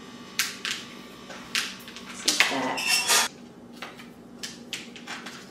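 Kitchen knife knocking on a cutting board as raw chicken breast is diced into small pieces, in irregular sharp taps. A louder, longer noisy stretch comes about two and a half seconds in.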